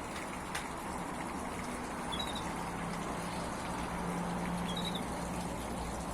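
Small aviary waterfall and fountain running steadily with trickling, splashing water and a faint low hum, while a small cage bird chirps briefly twice, about two and five seconds in.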